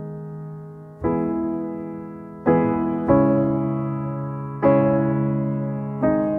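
Calm background music: slow piano chords, struck about five times and each left to die away.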